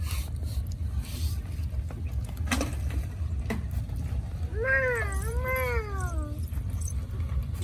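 Puppy whining: two drawn-out calls that rise and fall, starting about four and a half seconds in, over a steady low rumble, with a couple of sharp clicks before them.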